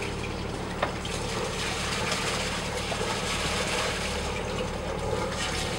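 A sailing yacht's engine idling steadily under a constant rush of water, with a single short click about a second in.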